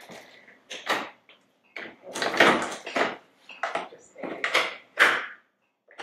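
Patient monitor being handled on its trolley mounting bracket: a run of separate knocks, clunks and short sliding scrapes as the monitor and mount are moved.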